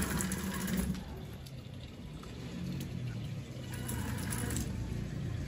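Homemade tracked robot's electric drive motors running with its tracks rolling over wet concrete, a low steady hum that drops off about a second in and picks up again near the end.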